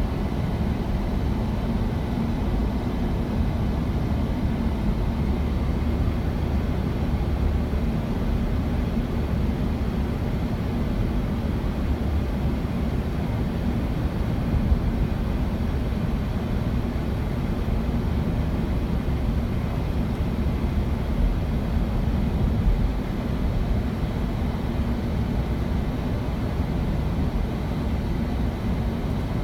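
Steady low rumble that runs without a break, with no speech.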